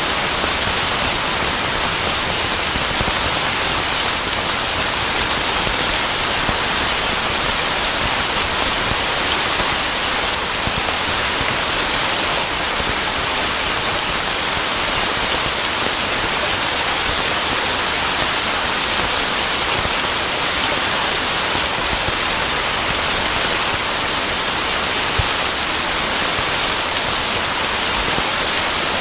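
Steady heavy rain falling, an even hiss of many drops.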